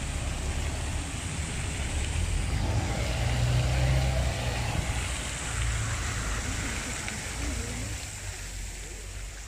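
City street noise: an articulated city bus's engine rumbling, loudest about three to four seconds in, over a steady hiss of fountain water and background voices.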